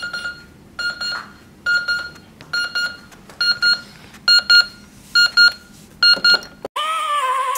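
Digital alarm clock beeping in short groups about once a second, single beeps at first and then quick double beeps. The beeping stops near the end and a wavering held note starts.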